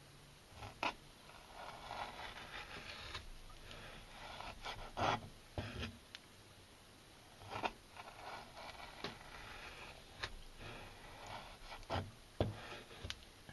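Kitchen knife slicing and scraping through a raw largemouth bass fillet on a cutting board to cut out the pin-bone strip: short, uneven scraping strokes broken by several sharp knocks.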